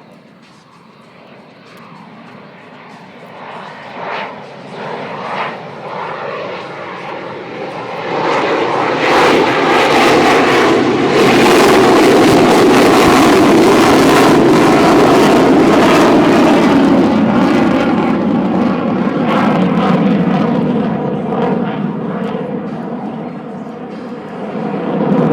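Jet noise from an F-16 fighter passing. It grows steadily louder over about ten seconds, stays very loud for several seconds, eases off, then rises again in the last second.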